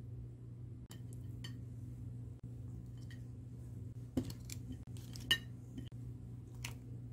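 Utensils clicking and clinking against a ceramic plate as pieces of spicy marinated crab are served onto it. There are a handful of sharp clicks, the loudest about five seconds in, over a steady low hum.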